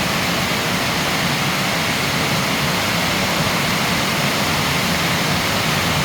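Heavy storm rain pouring down, a loud, steady hiss with no let-up.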